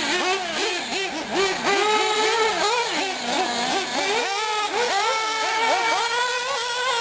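High-revving small nitro engines of two 1/8-scale buggies, a Hot Bodies D8 and an Associated RC8, repeatedly climbing and dropping in pitch as the throttle is worked. Near the end one engine holds a steadier high note.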